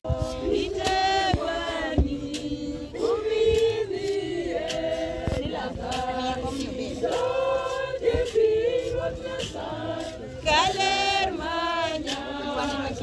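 A group of voices singing together in sustained phrases, with a few sharp knocks.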